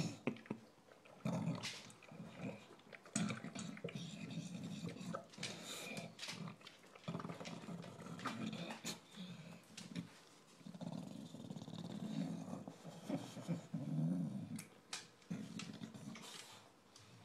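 English bulldog eating noisily from a stainless-steel bowl, breathing and grunting through its short nose in stretches of a second or two, like a Wookiee with asthma. Sharp clicks and knocks of the food and muzzle against the metal bowl break in throughout.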